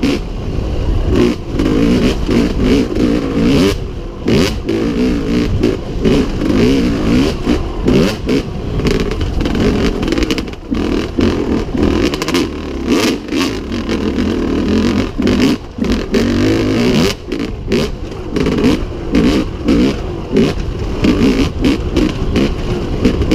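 1998 Yamaha WR250Z two-stroke single-cylinder dirt bike engine revving up and down under way, the throttle constantly opening and closing. Frequent short knocks and clatter run over the engine sound.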